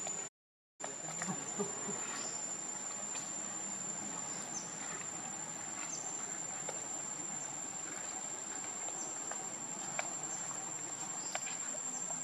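Insects chirring outdoors: one steady, high-pitched tone held throughout, with a few faint ticks and rustles. The sound cuts out completely for about half a second just after the start.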